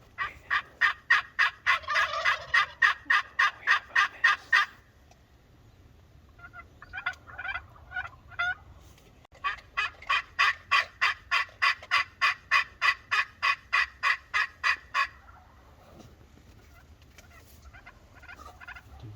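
Wild turkeys calling: two long runs of rapid, evenly spaced yelps, about five notes a second, with a shorter, broken run of calls between them and a gobble over the first run.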